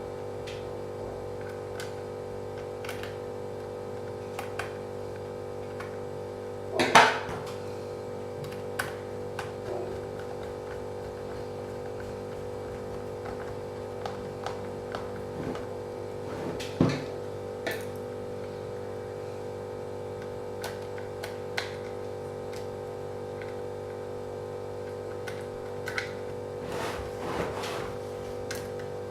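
A steady hum of several fixed tones, with scattered small clicks and knocks. The loudest knocks come about seven seconds in and about seventeen seconds in.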